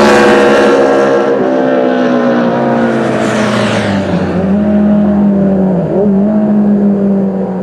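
Honda CB750 Four racer's air-cooled inline-four engine running loud, its revs falling off at the start and then holding fairly steady, with two brief dips in pitch, about four and six seconds in.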